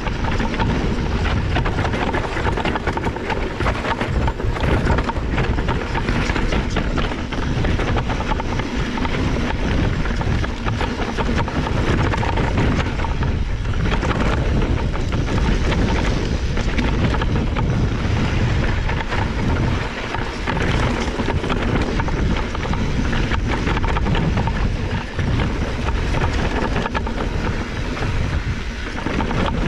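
A mountain bike descending a rough dirt trail: tyres rolling and the bike rattling and knocking over rocks and roots, with wind rushing over the microphone.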